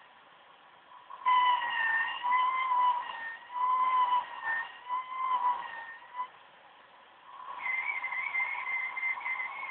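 Coil whine from the chokes of an OCZ ZX1250 80+ Gold power supply under changing benchmark load: a high whistle with overtones that wavers in pitch and loudness. It starts about a second in, drops away around six seconds and returns near the end.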